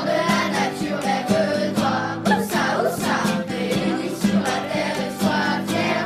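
Background music: a song with several voices singing together over a steady beat.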